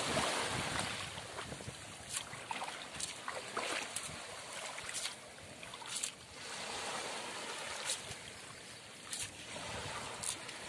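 Water sloshing and splashing as a cast net is dragged and hauled in through shallow, grassy water, with several sharper splashes scattered through.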